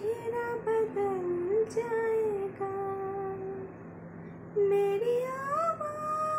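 A woman singing a slow melody with long, held notes and gliding pitch changes.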